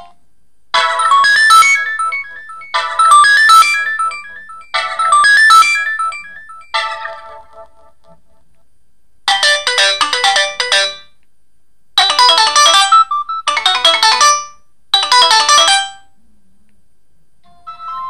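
Preloaded ringtones of an Alcatel OneTouch SpeakEasy phone. A short electronic melody repeats four times, about every two seconds. After a pause a different ringtone plays in four short bursts, and a third begins near the end.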